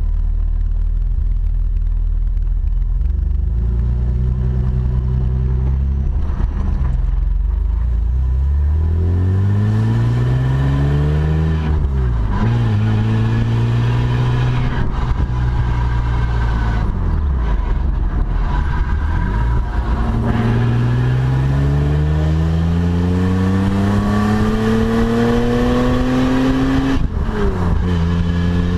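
1987 BMW 635CSi's straight-six engine running steadily at first, then revving out hard twice. Its pitch rises in a long climb each time and drops sharply at the upshift, once about twelve seconds in and again near the end.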